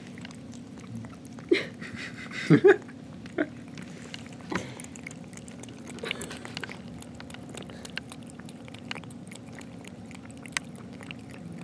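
A cat lapping water from a pet water bubbler: a steady run of small wet ticks, with a few louder knocks about one and a half and two and a half seconds in, over a steady low hum.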